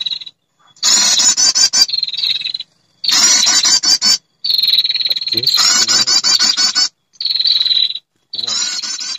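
Female perenjak (prinia) lure call: fast, high-pitched trilling in bursts about a second long, broken off by short silences.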